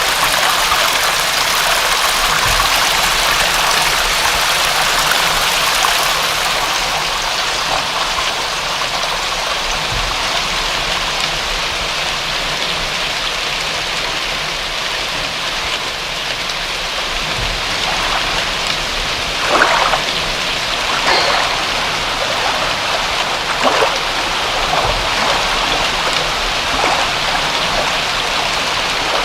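Steady rain falling, an even hiss with a few louder single splashes of drops in the second half.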